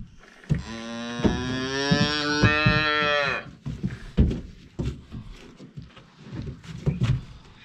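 Newborn calf bawling once, a long call of about three seconds that drops off at the end; a hungry calf wanting milk. Scattered knocks and thumps follow.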